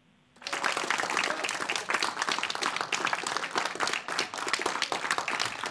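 A room full of people applauding, breaking out about half a second in as a dense, steady patter of many hands clapping.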